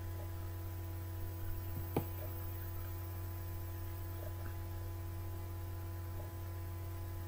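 Steady electrical hum, with one sharp click about two seconds in.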